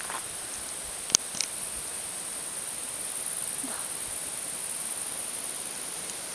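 Steady high-pitched buzzing of insects in the summer meadow grass, with two sharp clicks a little after a second in.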